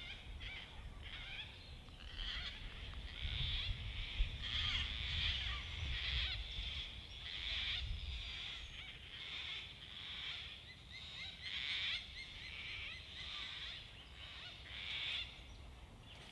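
Gang-gang cockatoo calls: the harsh, creaky-door screech, repeated roughly once a second.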